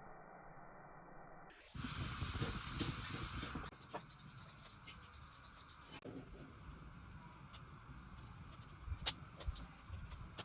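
A loud, steady hiss that starts abruptly about two seconds in and cuts off about two seconds later. After it comes quiet background with a few scattered clicks.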